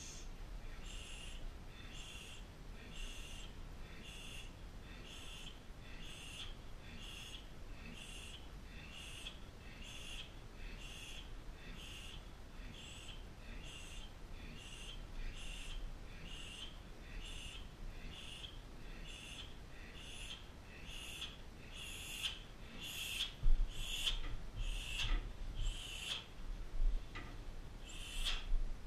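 Short, sharp hissing breaths let out in a steady rhythm, a little more than one a second, as a Muay Thai fighter throws repeated front kicks. A few dull thuds join in near the end.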